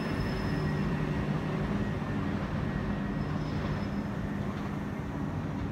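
Southern Class 377 Electrostar electric multiple unit running on the tracks some way off: a steady low hum with a faint thin whine above it.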